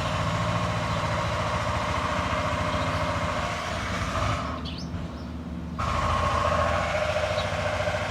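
A steady engine-like hum that dips briefly for about a second and a half just past the middle.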